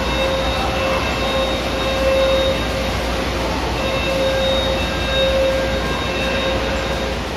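Rushing, crashing water of an indoor wave pool, with a steady horn-like tone over it that swells and fades unevenly.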